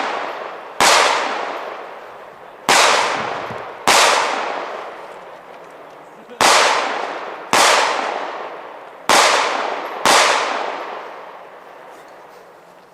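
Seven 9mm pistol shots at an uneven pace, several in pairs about a second apart, each trailing off in a long echo.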